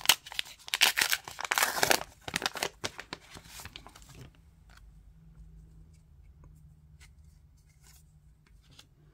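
A trading-card pack wrapper being torn open and crinkled for about four seconds, then faint scattered clicks as the cards are handled.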